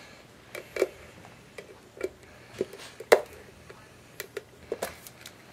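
Plastic anatomical model skull being opened: a series of about ten irregular sharp clicks and knocks as the skull cap's small metal clips are unhooked and the plastic cap is lifted off. The loudest knock falls a little past the middle.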